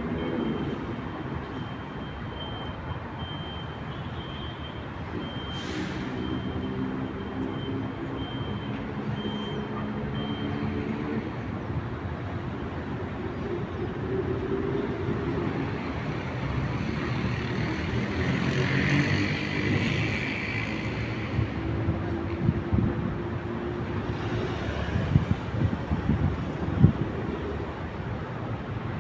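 Street traffic in a city centre: heavy vehicles pass with their engines running over a continuous traffic hum. A run of sharp knocks comes near the end.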